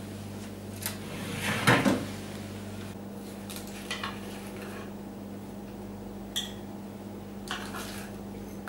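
Metal kitchen tongs clinking and scraping against a metal baking tray as roasted potato wedges are picked up, a handful of short separate clinks. A louder clatter comes about two seconds in, under a low steady hum.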